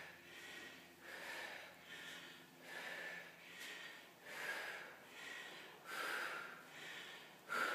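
Heavy breathing of a woman doing fast bodyweight squats, winded late in a timed set: a hard, noisy breath about once a second, in time with the squats.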